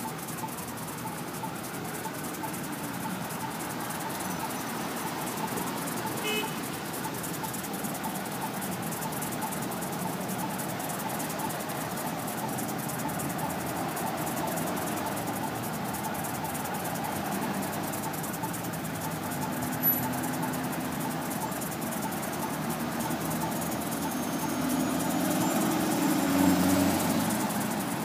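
Steady engine and tyre noise from a convoy of police cars passing on a wet street. Vehicle horns sound in the second half, loudest a few seconds before the end.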